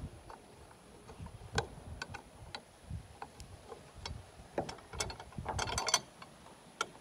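Screwdriver turning a screw in the metal housing of a livestock-trough float valve: scattered small metallic clicks and scrapes. Near the end comes a short rattle of quick clicks as the screwdriver is laid down on the wooden table.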